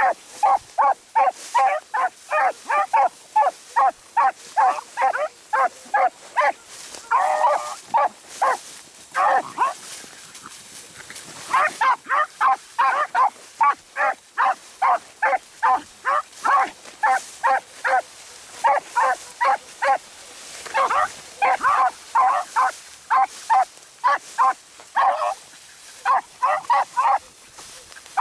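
Beagles baying on a rabbit track in quick, short, repeated barks, about three a second, with a pause of a couple of seconds midway before they pick it up again.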